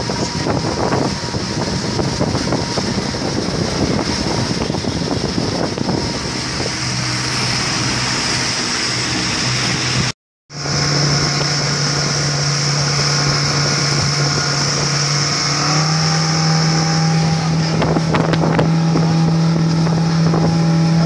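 Suzuki outboard motor driving a rigid inflatable boat at speed, its steady engine note over rushing wind and water. The sound cuts out briefly near the middle, and the engine note rises a little about two-thirds of the way through.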